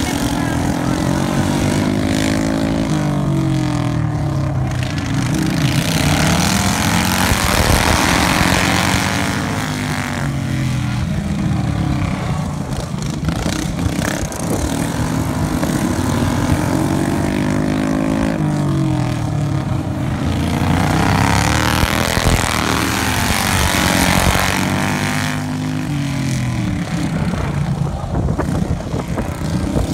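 Several racing lawn mower engines running hard, their pitch repeatedly rising and falling as they lap. The sound swells twice as the mowers pass close, about a third of the way in and again past the middle.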